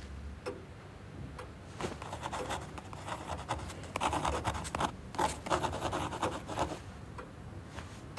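Pen scratching on paper in short, irregular strokes, sparse at first and busier from about two seconds in.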